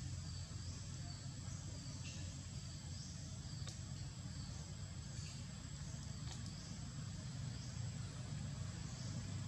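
Outdoor woodland ambience: a steady high-pitched insect drone, with short high chirps repeating about once a second over a low steady rumble.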